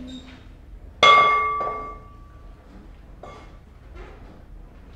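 A spoon strikes a glass mixing bowl once, hard, about a second in, and the bowl rings with a clear tone that fades over a second or so. A lighter knock follows, with a couple of faint taps later.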